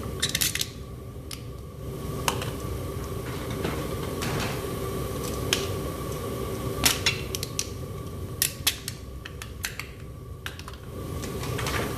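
Gas burner of a homemade metal-melting furnace running steadily, with irregular sharp crackles and pops from soda cans melting in the molten aluminum.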